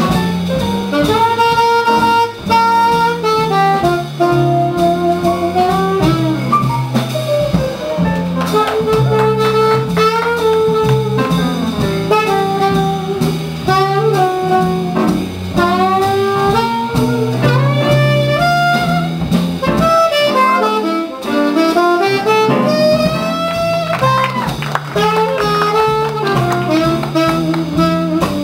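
Slow swing jazz: a melody line that slides between notes over a walking bass and drums. The bass drops out briefly about two-thirds of the way through.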